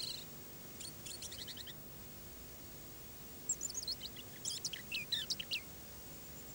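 Small songbirds singing in woodland: a quick trill of high repeated notes about a second in, then a longer phrase of high chirps that step down in pitch, starting about three and a half seconds in.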